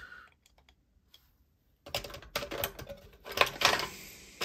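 Light clicks and taps of small metal tool parts being handled, a string of them starting about two seconds in, as a driver bit is changed in a bit driver.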